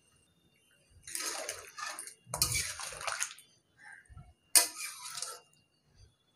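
Metal spatula stirring spiced potato and taro pieces in a little water in a metal kadai: three bursts of wet scraping and sloshing, the masala being braised with water.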